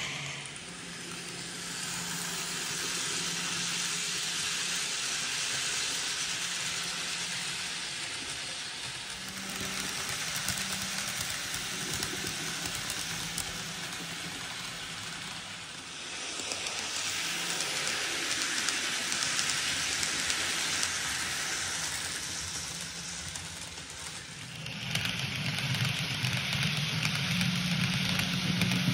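N-scale model electric train running on layout track: a steady hissing rolling noise from wheels on rail, with a faint motor hum that grows louder near the end. The sound shifts abruptly a few times.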